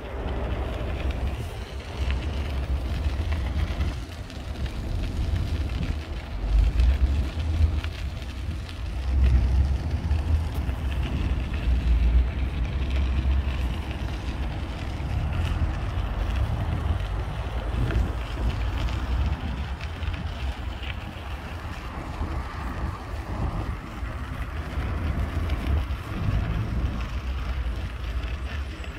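Wind buffeting the microphone in uneven gusts, heaviest a few times in the first half, over the steady hiss of street traffic.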